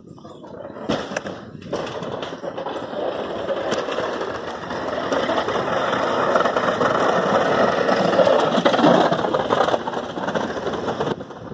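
Pickup snow plow truck passing close, its plow blade scraping and pushing snow along the road as it drives. The scraping grows louder to a peak about eight seconds in, then falls away near the end.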